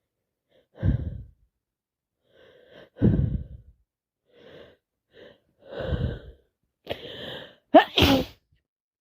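A woman with a heavy head cold sneezing over and over: a string of about seven breathy sneezes and sharp breaths, the loudest two close together near the end.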